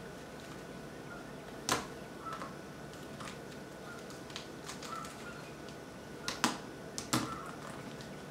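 Rubik's cubes being twisted quickly by hand: irregular sharp plastic clicks as the layers turn, the loudest about two seconds in and in a cluster near the end.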